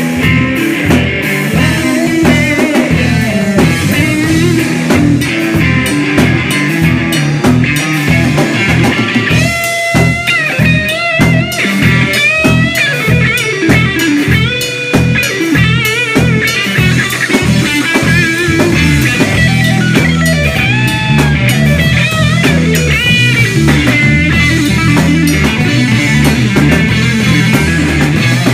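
Live rock band playing loudly: a Stratocaster-style electric guitar plays a lead line with bent, gliding notes from about ten seconds in, over a steady Tama drum kit beat.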